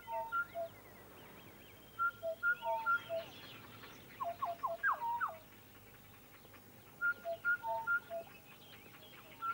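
Soundtrack music: a short motif of clear, whistle-like notes on three pitches, repeated in the same order several times, with a run of quick rising whistles in the middle. Faint chirping sits behind it.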